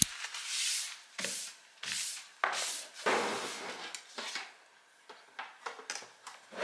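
Things being handled and slid about on a desk: a sharp click at the start, then a series of short rubbing and scraping strokes, with a few light knocks and ticks near the end.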